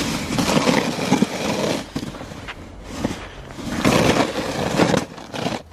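Snow shovel blade scraping along pavement as it pushes snow, in two long strokes, the second about halfway through.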